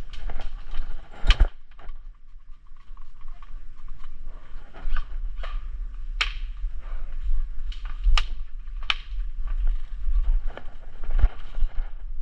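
Scattered sharp clicks and knocks at irregular intervals, the loudest about a second and a half in, over a low rumble on the microphone.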